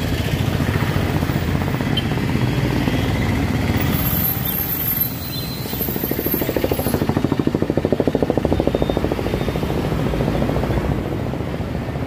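Street traffic, with a small engine running close by. Its fast, even beat grows strongest between about six and nine seconds in.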